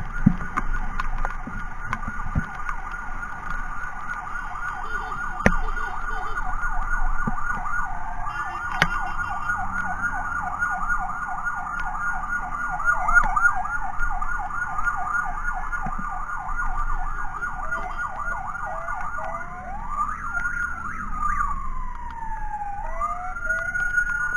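Electronic emergency siren sounding a rapid yelp that rises and falls several times a second. About 20 seconds in it switches to a slow, rising and falling wail. A few sharp clicks cut through it.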